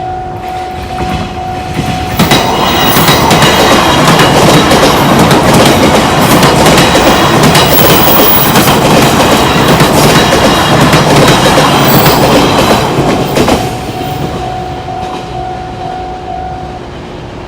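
Japanese railway level-crossing warning bell ringing, with a train passing through the crossing from about two seconds in to about thirteen seconds, its wheels clattering over the rails and drowning out the bell. The bell is heard again as the train goes by.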